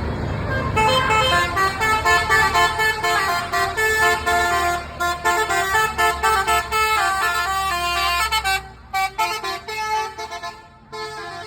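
Basuri 'telolet' musical bus horn playing a quick tune of short stepped notes over a bus engine's low running. The tune starts about a second in and breaks off shortly before the end.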